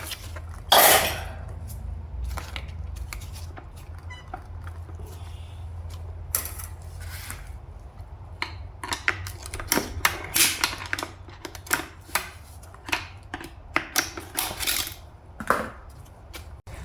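Clutch plates and other metal parts of a Toyota U760E automatic transmission clinking and clattering as they are handled and lifted out. The knocks are irregular, with one sharp knock about a second in and a quicker run of clicks in the second half.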